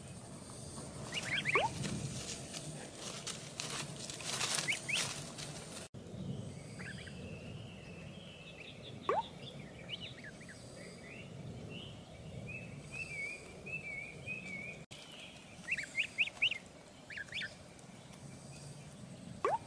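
Ducklings peeping in short, high chirps, with a quick run of several peeps near the end, over the faint steady hum of the surrounding woods.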